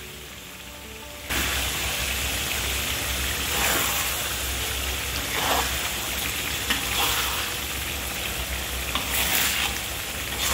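Fish curry in a thick tomato sauce bubbling and sizzling in a wok, a steady hiss that comes in suddenly about a second in.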